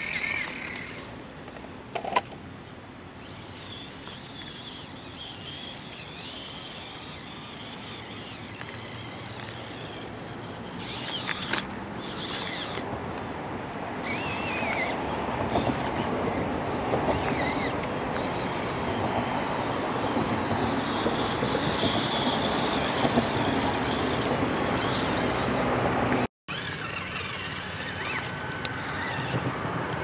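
Small electric motor and gearing of a 1/24-scale RC rock crawler running as it crawls over rock, building gradually louder, with the tyres scrabbling on the stone. The sound cuts out for a moment a little after the middle of the second half.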